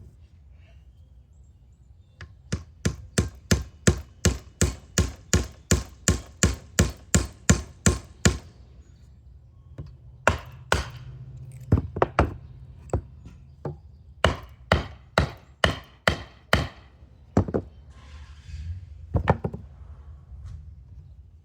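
Hammering on wood: a quick run of about twenty sharp blows, a pause of a second or two, then more blows in shorter runs and a few single strikes near the end.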